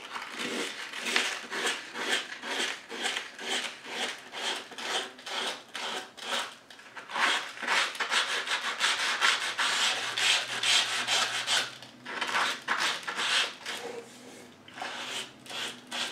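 Fine-grit sandpaper rubbed by hand back and forth along the edge of a cradled wood panel, about two strokes a second, with a few short pauses near the end. It is smoothing the freshly trimmed edge of watercolour paper mounted on the wood.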